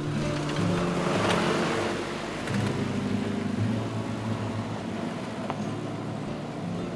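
Truck driving past close by on a gravel road: engine and tyre noise swell to a peak about a second in, then fade slowly as it pulls away.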